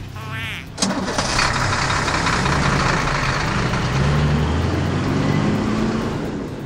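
Cartoon truck engine sound effect: it starts abruptly with a clunk about a second in, then runs with a low rumble and hiss whose pitch shifts and rises, and fades out near the end. A brief wobbly tone comes just before the start.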